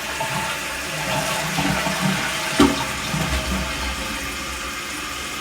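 Toilet flushing and its tank refilling, with water running steadily, and one brief knock a little over halfway through.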